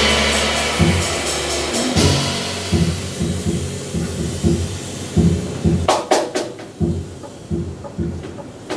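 A jazz band's loud sustained sound with cymbal wash dies away in the first second, then an upright double bass plays plucked notes alone at a steady pace. A few sharp percussive taps sound briefly about six seconds in.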